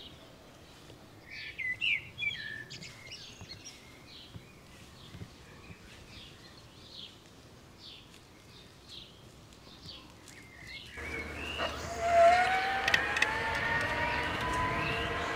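Birds chirping over quiet open-air ambience. Near the end a louder, steady whine with several pitches comes in and rises slowly, like the Bafang hub motor of the e-bike pulling under power.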